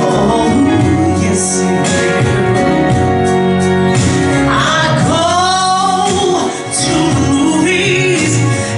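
A female soul singer singing a slow ballad live with a band, her voice over sustained keyboard chords. About five seconds in she swoops up into a long note.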